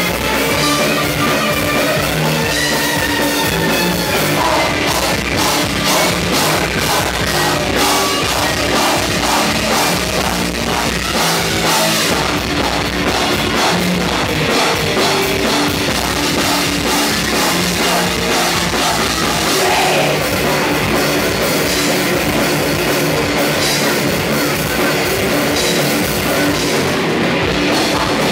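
Thrash metal band playing live at full volume: distorted electric guitars over fast drumming on a drum kit.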